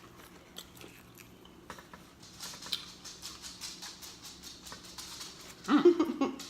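Close-mic chewing and lip-smacking on fried chicken: a run of quick, wet clicking and smacking. Near the end comes a short, loud sound from the voice.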